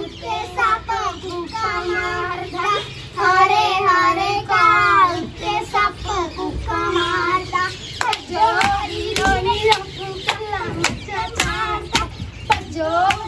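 A high voice singing a Punjabi song with wavering, ornamented lines over a steady held drone. From about eight seconds in, sharp hand claps keep time with it.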